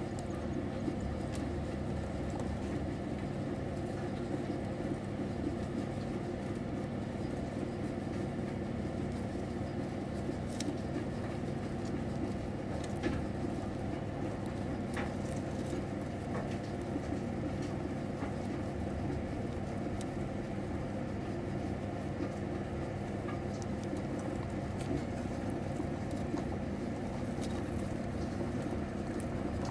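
A steady low hum, with faint scattered clicks and rustles from multimammate mice nibbling noodles and shifting about in dry wood-chip bedding.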